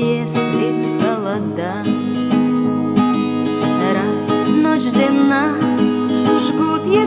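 Song with acoustic guitar accompaniment, with what sound like held sung notes over it.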